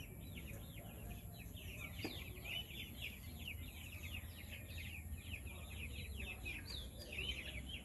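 Birds chirping continuously: a dense chorus of many short, downward-sliding peeps overlapping several times a second, over a low rumble.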